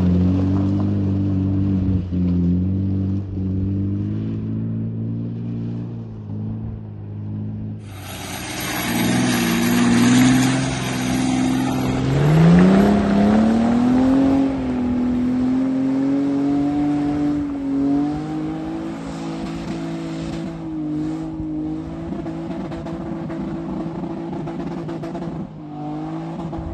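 Four-wheel-drive SUV engines working hard up a muddy slope: a steady laboring engine note at first, then a rush of noise about eight seconds in, after which a Suzuki Grand Vitara's V6 revs rise steeply and are held high as it claws up the hill.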